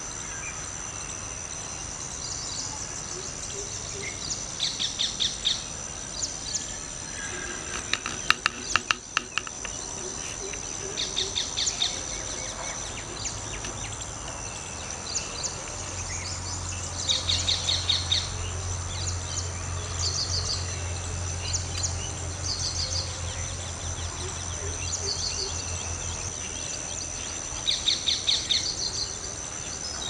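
Outdoor ambience of birds calling in short rapid bursts, over a steady high-pitched drone of insects. A low hum sounds for about ten seconds in the middle.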